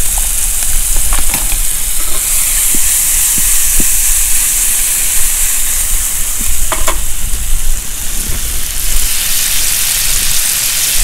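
Diced pancetta and scallop corals sizzling steadily in a hot frying pan on a portable gas stove, with a few light knocks of the pan and utensil.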